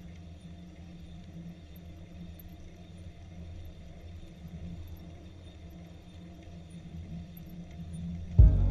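A vehicle running steadily, heard as a low, even rumble. Loud music cuts in abruptly near the end.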